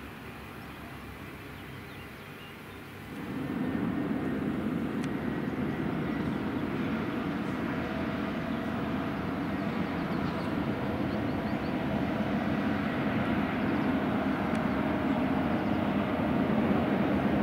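Boeing 757 jet engines running: a steady rumble with a faint steady whine. It sets in abruptly about three seconds in, after a quieter hiss, and grows slowly louder.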